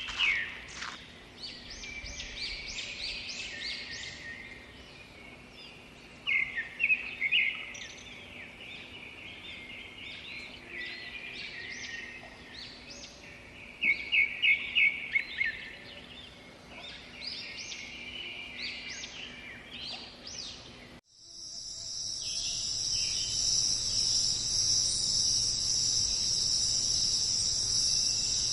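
Forest birds calling and singing, with two loud runs of rapid chirps, for about twenty seconds. Then a sudden cut to a steady, dense, high-pitched insect chorus.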